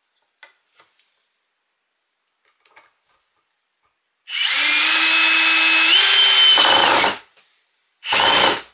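Cordless drill-driver driving a screw through a wooden batten into a bamboo board: one run of about three seconds, its whine stepping up in pitch partway through, then a short second burst near the end. A few light handling clicks come before it.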